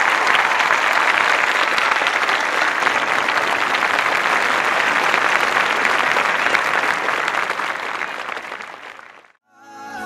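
Applause from many hands clapping, steady, then fading out about nine seconds in. Music begins right at the end.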